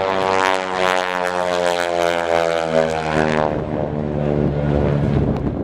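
Single-engine propeller airplane making a low pass: a loud engine-and-propeller drone that dips slightly in pitch and fades after about three and a half seconds.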